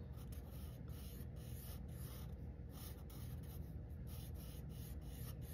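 Sharpie marker drawing on sketchbook paper: a run of short, faint strokes as rounded flower petals are outlined.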